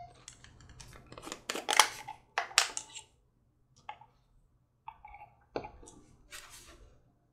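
Handling noises from a small plastic bottle and a wire-handled wool dauber on a workbench: the dauber is dipped and scraped in the bottle and the bottle and cap are set down. It is a run of irregular clicks and scrapes, loudest about two seconds in, with a few single clicks later.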